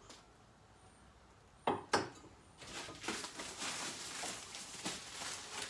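Two sharp knocks about two seconds in, then continuous rustling and crinkling of paper and packaging as items are handled over an open cardboard box.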